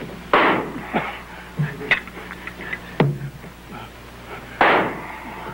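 Several sharp knocks and clacks spaced a second or so apart, with two short rushing bursts of noise, one near the start and one near the end.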